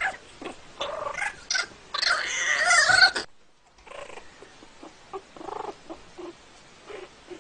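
Kitten yowling as it play-fights with a puppy: short cries in the first two seconds, then a loud, wavering cry lasting about a second, followed by fainter scattered sounds.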